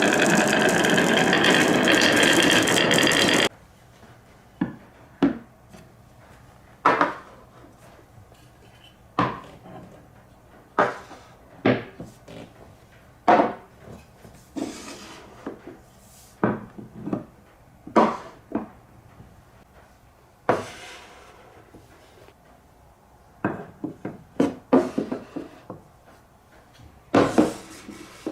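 Marbles rolling down a wooden HABA marble run of wave slopes. A loud, dense clatter lasts about the first three and a half seconds, then cuts off suddenly. After that come scattered sharp clicks and knocks, sometimes in quick clusters, as single marbles strike the wooden track pieces.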